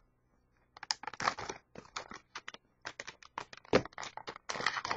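Plastic toy packaging being opened and handled: irregular sharp clicks and crackles with short crinkling rustles, starting about a second in.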